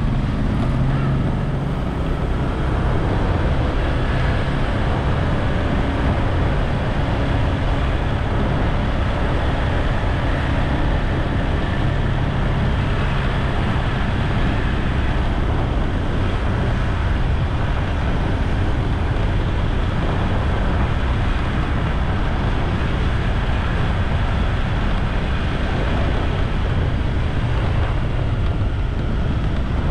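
Motorbike engine running steadily while riding along a road, with a low engine hum under a constant rush of wind and road noise.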